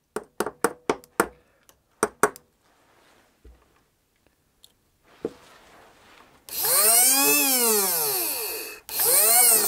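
A clip lead snapping on and off a 12 V battery terminal makes a quick run of sharp clicks. Later the Kyosho starter box's small brushed electric motor spins up with a whine that rises and then falls, twice near the end, with a hiss over it. The motor only starts after such a jolt of contact, which the owner puts down to a flat spot in the motor.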